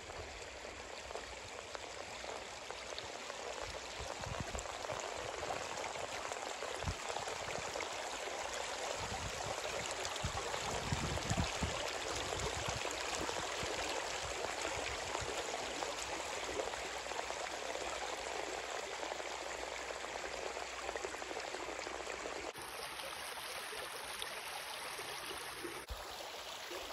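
Shallow river water running over rocks and gravel: a steady rush of flowing water.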